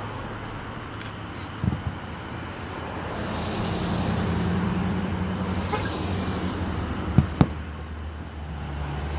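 A car engine running close by, swelling from about three seconds in and fading again, over general traffic noise. A sharp pop comes about two seconds in, and two more close together near the end.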